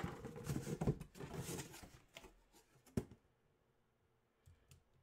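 Cardboard box lid being worked loose and slid off, with about two seconds of scraping and rustling cardboard, then a single sharp knock about three seconds in. After that only a couple of faint ticks.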